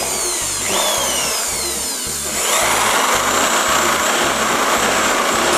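Handheld electric drill with a 10 mm bit boring holes through the thin sheet-metal wall of a paint can, its motor pitch sliding up and down, getting louder about two and a half seconds in.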